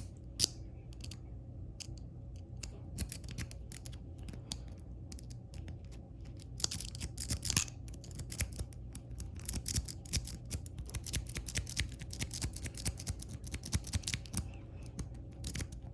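Metal lock-pick rake scrubbed in and out of the keyway of a 40 mm laminated Master Lock No. 3 pin-tumbler padlock: rapid, irregular clicking and scraping as the rake bounces the pins, coming in denser runs partway through. The raking is not opening the lock.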